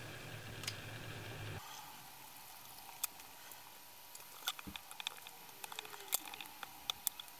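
Faint scattered clicks and light scrapes of a small precision screwdriver tip working against the plastic housing of an AEMC SL261 current probe, starting about three seconds in, with one soft low thump a little past halfway.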